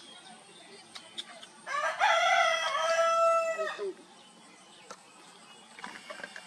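Rubber chicken squeeze toy squeezed once, giving a single loud squawk of about two seconds. The squawk starts a little under two seconds in, its pitch shifts and then holds steady before it cuts off.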